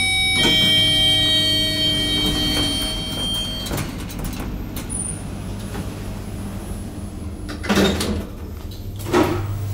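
Inside a 2004 TH Hissi traction elevator car: a steady low hum runs throughout, and a ringing tone of several pitches fades out over the first few seconds. A click follows as a car button is pressed about four seconds in, then two sharp knocks from the car's sliding doors near the end.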